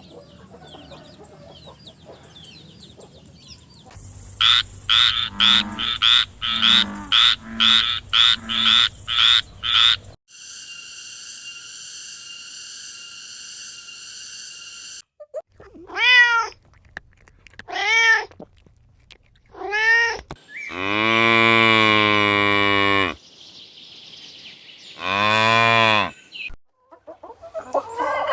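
A string of separate animal sound clips. A rapid run of short repeated calls and a steady held tone come first, then a domestic cat meowing: three short meows about two seconds apart, a long drawn-out meow, and one more near the end.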